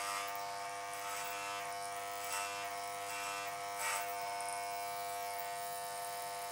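Corded electric hair clipper running with a steady buzz as its blades trim the ends of shoulder-length hair. It gets briefly louder a few times, at about two and a half and four seconds in, as the blades bite into the hair.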